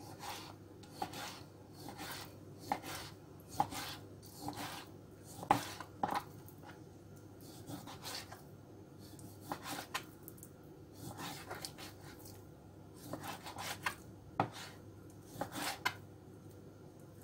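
Kitchen knife slicing raw chicken breast into strips on a plastic cutting board: irregular knocks of the blade on the board, a stroke or two each second, with a short pause about halfway.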